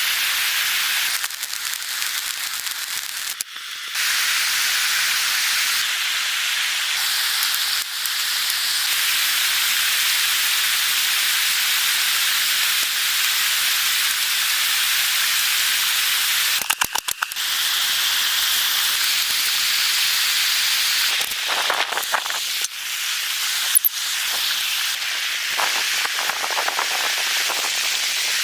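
Steady, loud hissing noise with a few brief crackles and short dips along the way.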